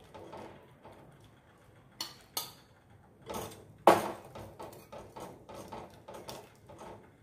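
Steel spoon clinking and scraping against a steel pot and a steel bowl as boiled papaya pieces are scooped out of sugar syrup and dropped into the bowl, the loudest clank about four seconds in.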